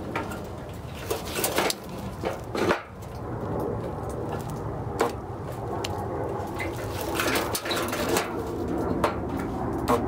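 Homemade spotter dent puller working a dent out of a steel car fender: a series of sharp metallic clicks and snaps, irregularly spaced about a second apart, as the puller tip is welded to the panel and pulled.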